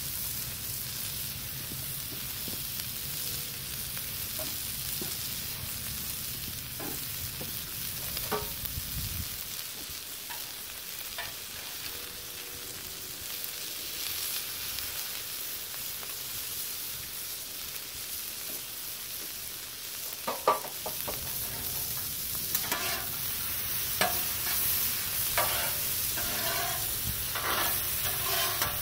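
Food sizzling steadily on a Blackstone flat-top griddle. A low hum drops out about nine seconds in, and in the last third metal spatulas scrape and clack against the griddle's steel surface as the vegetables are tossed.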